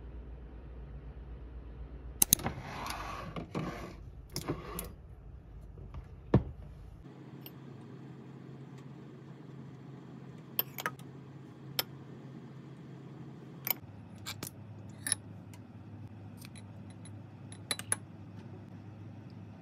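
Small kitchen handling sounds. A few sharp knocks and a short rustle come in the first seconds, then scattered light clicks and clinks of a metal spoon against a ceramic ramekin and of sauce bottles and caps on the countertop as sauces are measured out.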